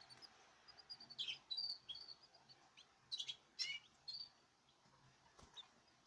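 Small cage birds chirping: quick runs of short high notes, with several louder chirps in the middle, some sliding down in pitch, trailing off near the end.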